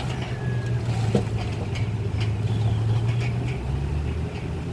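Diesel engine of heavy earthmoving machinery running steadily, with scattered light clanks over it.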